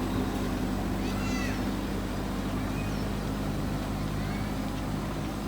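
JCB backhoe loader's diesel engine running steadily, with several short rising-and-falling animal calls over it, the clearest about a second in.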